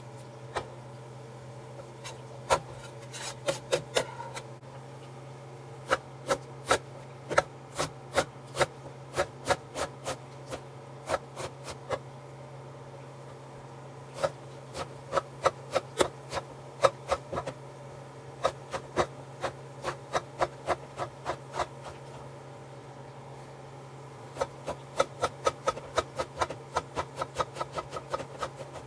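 Knife chopping onion and cilantro on a cutting board: runs of sharp knocks, about two to three a second, with short pauses between the runs.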